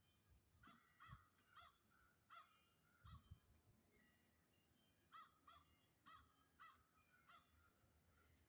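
Faint calls of a bird: about a dozen short pitched notes, each rising and falling, coming in loose groups of two or three.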